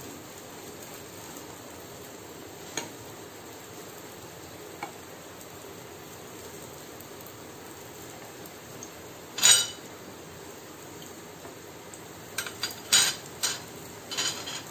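Malpua batter frying in oil on a non-stick tawa, a steady sizzle. A slotted spatula scrapes and taps against the pan: a few light clicks, one loud ringing clatter about ten seconds in, and a quick run of taps near the end.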